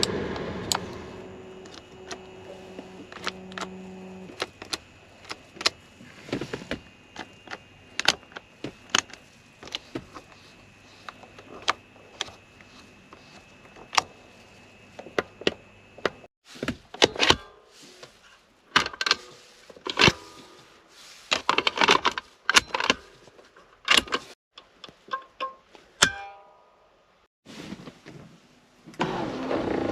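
1992 BMW E32 7 Series: a steady electric-motor hum for the first few seconds, then a long run of sharp clicks and short mechanical knocks from the car's switches and mechanisms, coming thicker and louder in the second half with short gaps of near silence between them.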